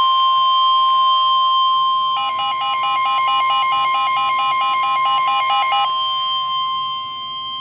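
Emergency alert attention tone: a steady, loud single-pitch tone. From about two seconds in, a second, rapidly pulsing alert tone sounds over it for about three and a half seconds, then stops while the steady tone carries on.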